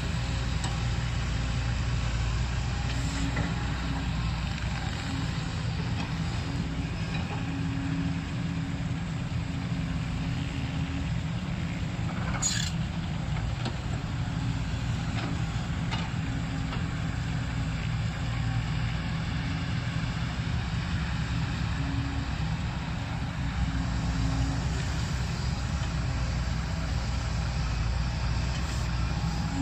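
Kobelco SK140 excavator's diesel engine running steadily while it works, its low drone swelling and easing with the load. A single sharp knock about twelve seconds in, and a fainter one a few seconds later.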